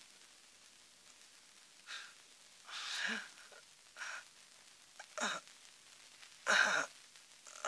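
A man's short, pained gasps and groans, about five of them a second or so apart, the loudest near the end.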